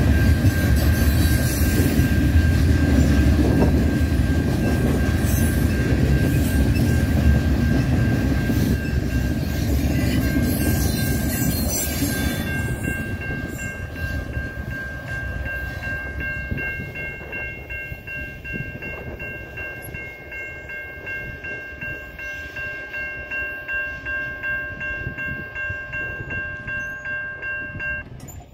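CN freight train's cars rolling past, the rumble fading as the train moves off. A steady high ringing tone sounds over it and stops abruptly near the end.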